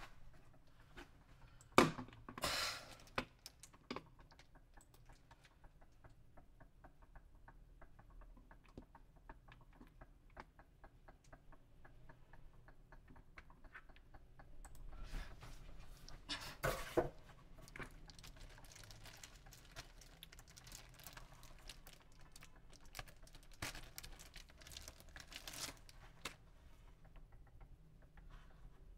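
Handling noises: a sharp knock about two seconds in, then several seconds of soft, rapid ticking. In the second half, plastic packaging rustles and crinkles in short bursts.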